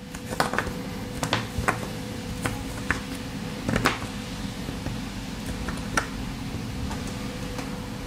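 Pocket-knife blade tip picking and prying at the plastic housing of a USB-C connector: scattered small clicks and scrapes, most in the first half, with one more about six seconds in, over a steady low hum.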